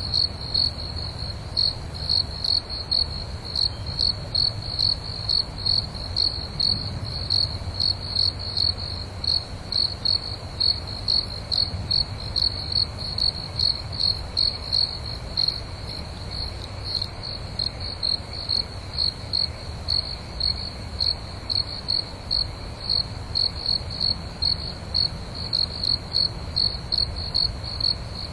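Cricket chirping steadily in an even rhythm of about two high-pitched chirps a second, over a faint low rumble.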